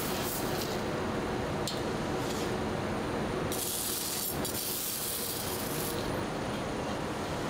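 Loose steel screws rattling and clinking as they are scooped by hand out of a steel trough, with a long spill of screws from about three and a half to six seconds in. A steady factory machine drone runs underneath.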